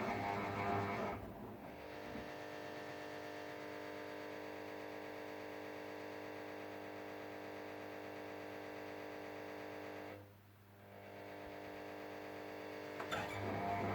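Ariston Margherita washing machine in the main wash of a cottons 60° cycle: a steady motor hum with an even whine. It drops out briefly about ten seconds in, then picks up and grows louder near the end as the drum turns again.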